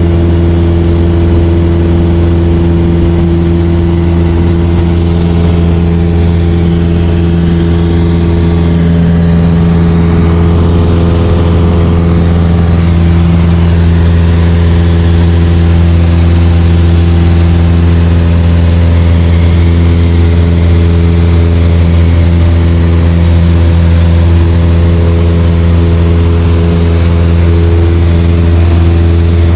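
Light aircraft's piston engine and propeller droning steadily in cruise at a constant pitch, heard from inside the cabin.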